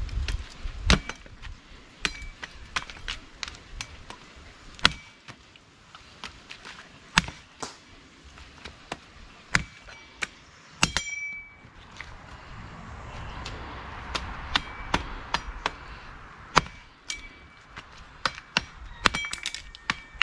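Knife chopping barracuda on a block: irregular sharp chops, some with a short metallic ring from the blade.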